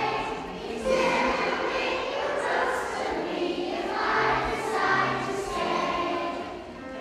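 A group of children singing together as a choir, sustained sung notes with several voices.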